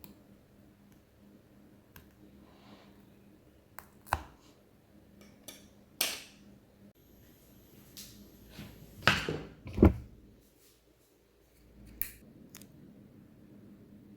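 Scattered sharp clicks and taps of small tools and phone parts being handled during a rear camera glass replacement on a phone, with a louder cluster of knocks about nine to ten seconds in.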